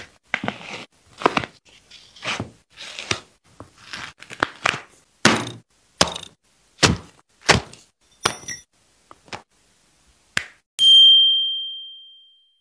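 A quick run of short thuds and knocks, about two a second, as the cut-apart sneaker and its pieces are handled and set down on the cutting mat. About eleven seconds in, a single bright chime rings out and slowly fades.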